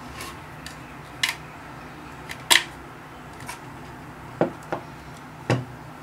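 Hard plastic clicks and knocks from a bird-deterrent unit being handled by hand while its power plug is pushed in: about nine short, sharp clicks, the loudest about two and a half seconds in.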